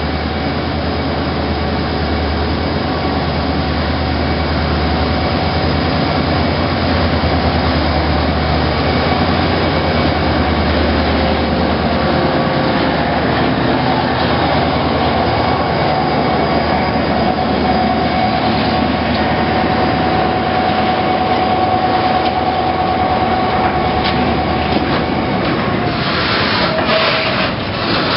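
TCDD DE 33000-class diesel-electric locomotive (GM G26CW, EMD 16-645E3C two-stroke V16) hauling a freight train past at close range, its engine giving a steady low drone, with a steady high whine through the middle. Near the end the container wagons roll by, their wheels clicking over the rail joints.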